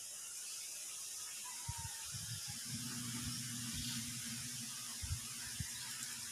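Steady high hiss of background noise, with scattered low bumps and thumps of handling from about two seconds in and a faint low hum beneath them.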